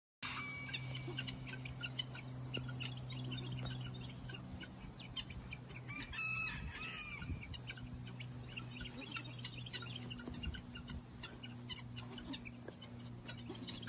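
Birds chirping in quick series of short calls throughout, with one longer pitched call about six seconds in, over a steady low hum.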